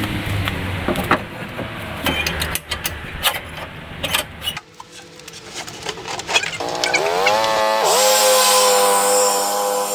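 Knocking and clattering as a plastic grass-catcher bagger is handled and set onto a steel quick-change hitch on a riding lawn tractor. About two-thirds of the way in, the lawn tractor's engine revs up, then runs steadily at high speed with a loud hiss.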